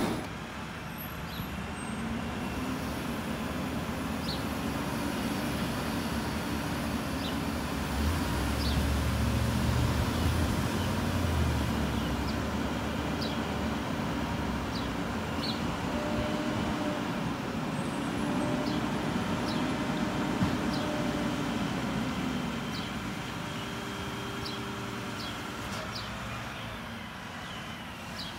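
Mack garbage truck's diesel engine running down the street, a steady low hum whose note swells for a few seconds about a third of the way in. A few short high chirps are scattered over it.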